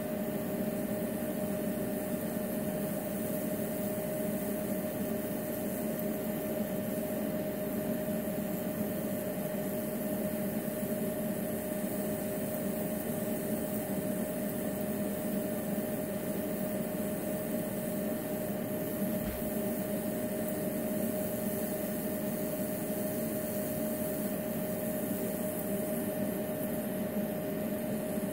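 Two ultrasonic cavitation handpieces running submerged in glasses of water: a steady hum with one constant mid-pitched tone over an even hiss.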